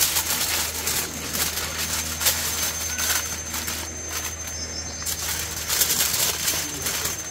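Aluminium foil crinkling and rustling as it is folded around a fish, with a steady low hum underneath. The crinkling gets busier about five seconds in.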